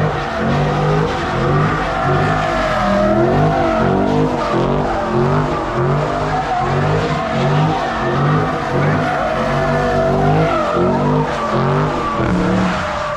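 Drift car doing donuts with a continuous tire squeal, its engine revving up and down over and over as the throttle is worked.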